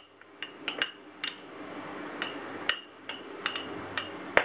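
Metal spoon clinking and tapping against a small ceramic bowl while batter is pressed down and smoothed level in it: about a dozen irregular light taps, each with a short ring, the loudest near the end.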